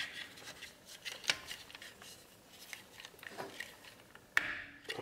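Light clicks and taps of a caliper piston spreader clamp worked against the pads in a four-piston brake caliper, pressing the pistons back. There is a sharper click about a second in and a louder brief noise near the end.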